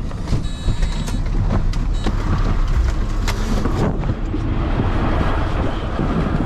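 Fire engine's diesel engine running with a steady low rumble, with knocks, clicks and the rustle of gear as a firefighter climbs down out of the cab.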